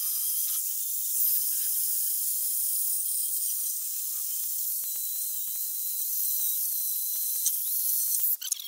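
Handheld electric drill spinning a wire wheel brush against rusty sheet steel, scrubbing off rust and old grime: a steady high hiss, with scattered ticks of the wire on metal in the second half, stopping suddenly near the end.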